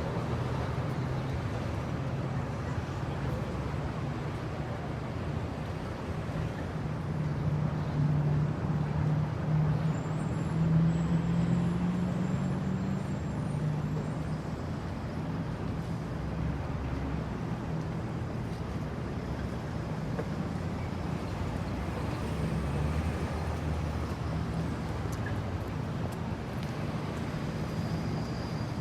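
Car engine running steadily with a low hum. It grows louder and its note rises slightly around ten seconds in, then settles back.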